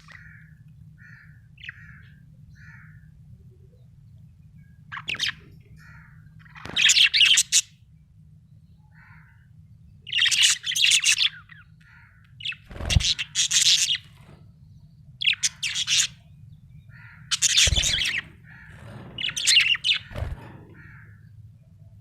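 Budgerigar chirping and warbling in short bouts, soft at first and then in louder clusters every couple of seconds. A steady low hum runs underneath, with a few low thumps.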